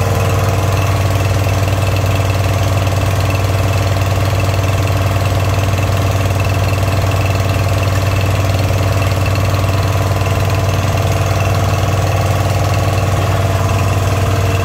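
Small engine-driven water pump running steadily at a constant speed, pumping drilling water down the borehole.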